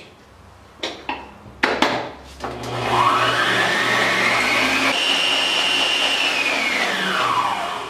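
Electric stand mixer with a wire whisk beating egg whites to stiff peaks: a few knocks, then the motor spins up with a rising whine, steps up to a higher speed about five seconds in, and winds down near the end.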